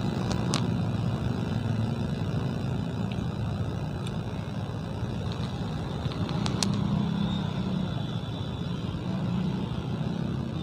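Steady traffic noise of a jammed street: many cars and motorcycles idling and creeping forward, their engines running together in a low rumble.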